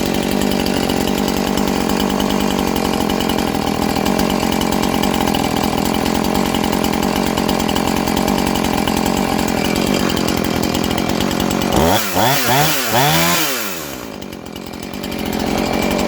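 Husqvarna 450 II two-stroke chainsaw running steadily at speed. About twelve seconds in it is revved up and down several times, drops quieter briefly, then picks up again.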